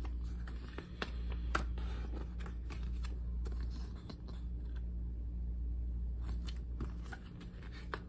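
Paper pages of a CD liner-notes booklet being turned and handled: scattered light rustles and sharp ticks over a steady low hum.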